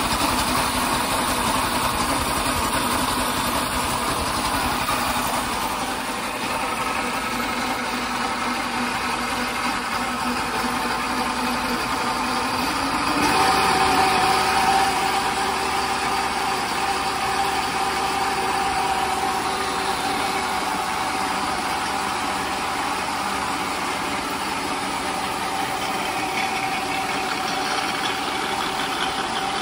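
Small single-cylinder gas engine on a DIY tow-rope rig running steadily through a new muffler, fairly quiet at mid RPM, with its drive chain to the tire wheels audible alongside. About 13 seconds in it briefly gets louder, then settles at a different steady pitch.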